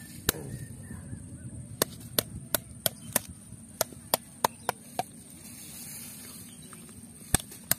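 A plastic bottle's capped end striking a snail shell on the ground: a run of sharp, separate knocks at an uneven pace, several close together in the middle and two more near the end, as the shell is cracked open.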